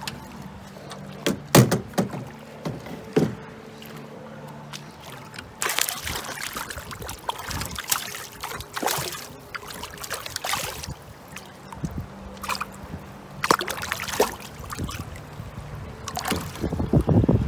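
American shad splashing and thrashing in a landing net at the water's surface: water sloshing, with a few sharp knocks scattered through and a busier stretch of splashing in the middle.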